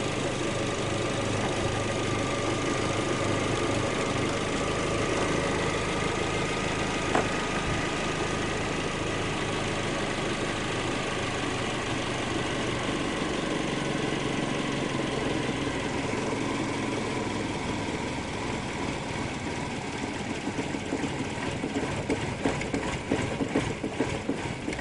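Car's gasoline engine idling steadily with its fuel pump cut off, running on the fuel left in the line. Over the last several seconds its note drops and it turns uneven and stumbling as it starves of fuel and dies.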